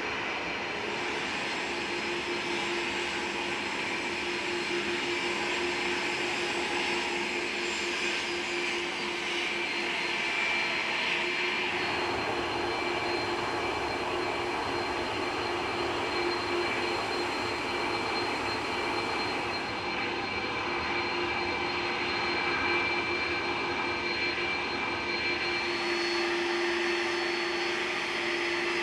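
Jet airliner engines running steadily: a broad rush with a steady whine of several tones on top.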